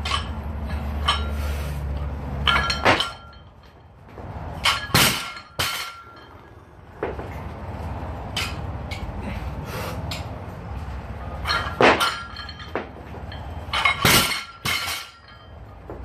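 Loaded barbell with bumper plates clanking and thudding during a set of power cleans: a series of sharp metal clinks and knocks as the bar is lifted, caught and set back on the floor, the loudest about twelve and fourteen seconds in.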